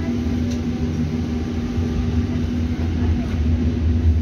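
A tram running, heard from inside the passenger cabin: a steady low rumble with a constant hum.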